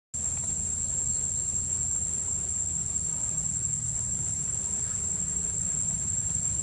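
Insects in the trees droning steadily, a continuous high-pitched buzz, over a low background rumble.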